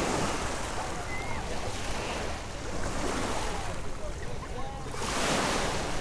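Small waves washing in on a shingle beach, the wash swelling every two to three seconds, with wind on the microphone and distant voices of people in the water.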